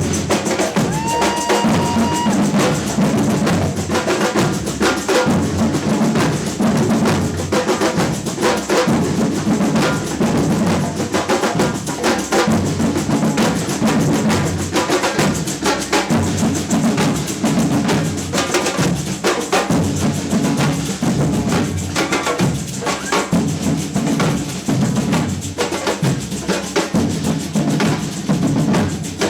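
Samba batucada percussion band playing a driving drum groove, with deep bass drums under snare drums.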